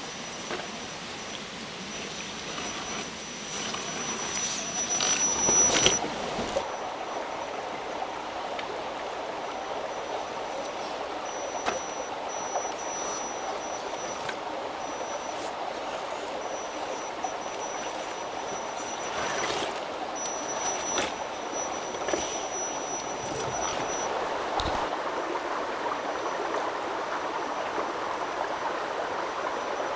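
A stream running over stones, with the thin high whine of a radio-controlled crawler's electric motor starting and stopping as it is driven. The water swells louder about five seconds in.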